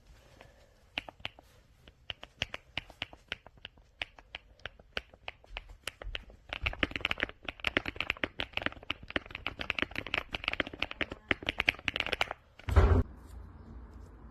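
Mechanical keyboard being typed on: scattered keystrokes at first, then a fast, dense run of typing from about halfway in. A single loud, deep thump comes near the end.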